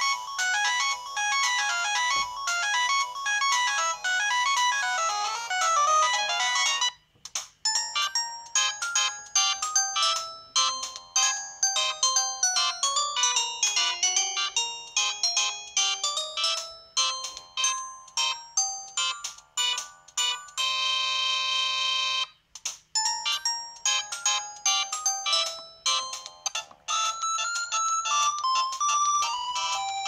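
Samsung SGH-C520 clamshell phone previewing its built-in polyphonic Yamaha SMAF ringtones one after another through its small speaker: bright synthesized melodies with almost no bass. Each tone cuts off when the next is selected, with brief breaks about seven seconds in and around twenty-two seconds.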